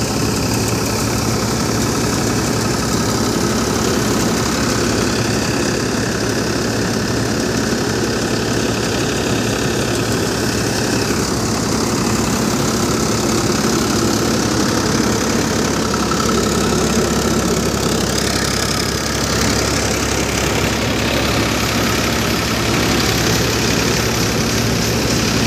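NJT multicrop groundnut thresher running steadily, driven by its engine: a continuous, even machine din with a low engine hum.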